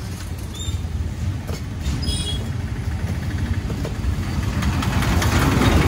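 Steady low rumble and rattle of a rickshaw ride through street traffic, growing a little louder near the end.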